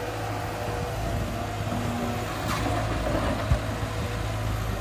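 Cat 320 tracked excavator's diesel engine running steadily under working load, with a steady whine above the engine hum and a single sharp knock about three and a half seconds in.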